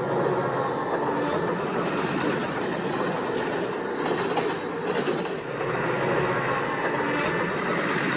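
Freight train rolling along: a steady, dense rumble and rattle of the locomotive and its cars on the rails.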